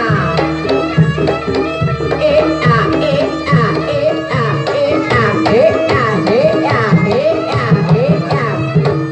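Jaranan gamelan music: kendang hand drums beating a steady rhythm under ringing gong-chime tones, with a melody line gliding up and down over them.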